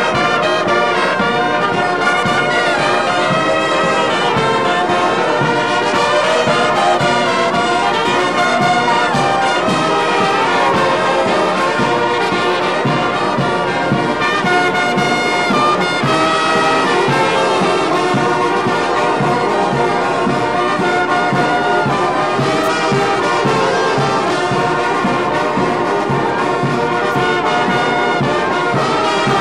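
Brass band of trumpets, cornets and large horns playing a piece together, loud and without a break.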